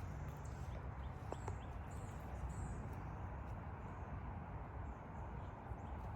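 Outdoor ambience: a steady low wind rumble on the microphone, with faint, high bird chirps repeating through the first few seconds and a couple of light clicks about a second and a half in.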